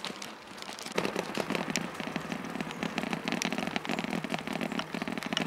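Bicycle tyres rolling over a rough, gritty path surface: a dense, irregular crackle of small pops from grit and stones under the tyres, starting about a second in.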